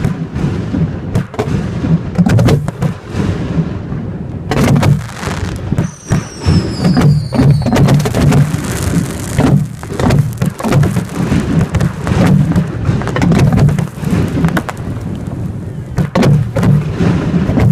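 Firework display fired close to the mortar tubes: a dense, rapid barrage of shell launches and bursts, booms and cracks overlapping into a rumble. A falling whistle sounds about six seconds in.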